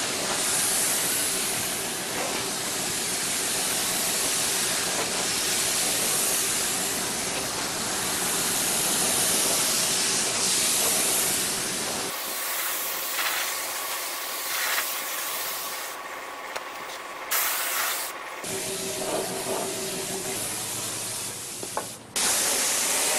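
Compressed-air gravity-feed spray gun hissing steadily as it atomizes red oxide primer, the hiss thinning for a few seconds about halfway through and breaking off briefly near the end.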